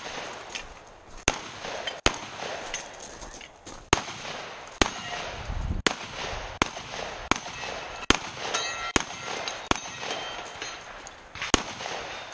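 About a dozen gunshots from a long gun, spaced roughly a second apart, with steel targets ringing after several of the hits.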